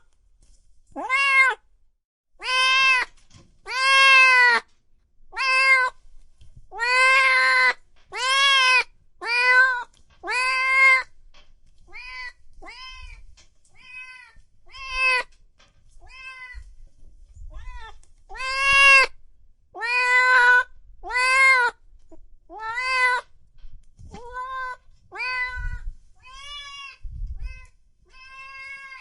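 Cat meowing over and over, about one meow a second, each call rising and then falling in pitch. The meows are loud in the first half, softer through the middle stretch, and loud again for a few calls before the end.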